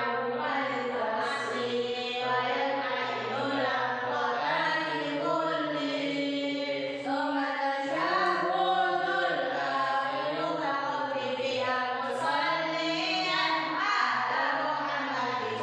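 A man chanting melodically without accompaniment, his voice held on long sustained notes that slide between pitches.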